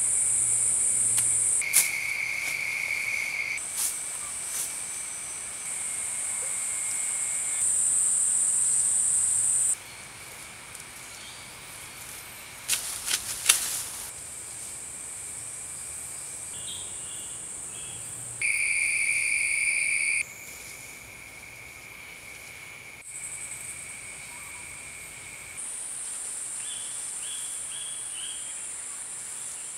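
Forest insects singing: steady, high-pitched buzzing choruses that change abruptly in pitch and loudness several times. A brief burst of crackling, like dry grass thatch being handled, comes about halfway through, and a few short chirping notes come later.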